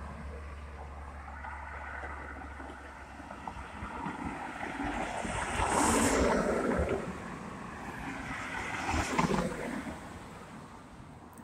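Road traffic noise: cars on the road, with the tyre and engine noise swelling about six seconds in and again around nine seconds, and wind on the microphone.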